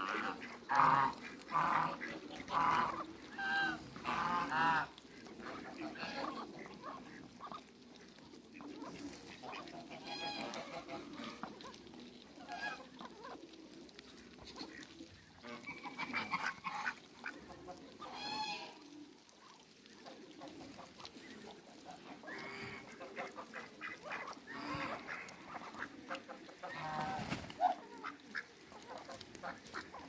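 A flock of domestic geese honking: a quick run of loud, repeated honks in the first five seconds, then scattered, softer calls every few seconds.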